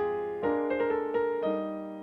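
Solo piano playing, with chords and single melody notes struck and left to ring.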